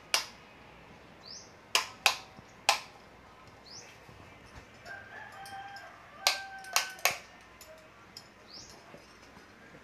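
Sharp metallic clicks and clinks from metal latch hardware being handled, coming singly and in quick groups of two or three. Faint bird calls and short chirps sound in the background.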